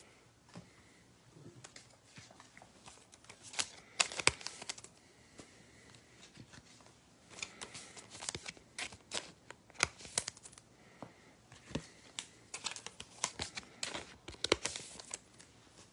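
Trading cards and a foil card-pack wrapper being handled, crinkling and clicking in short clusters with quiet gaps between, busiest about a third of the way in and again toward the end.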